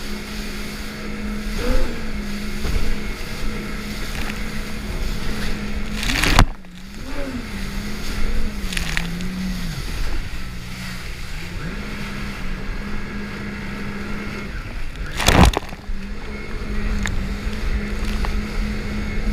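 Jet ski engine running at speed over a steady wash of water and spray. The engine pitch dips and climbs back up around seven to ten seconds in. Two sudden loud surges of noise cut across it, about six and fifteen seconds in.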